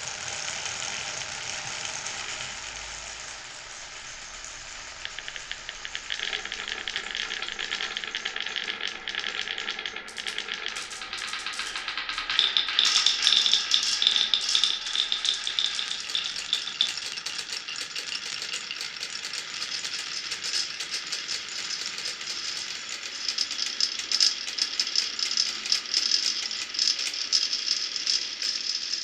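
Marbles rolling and clattering along a marble run's wooden and plastic tracks, a dense stream of small clicks and rattles that grows busier and louder about ten to twelve seconds in.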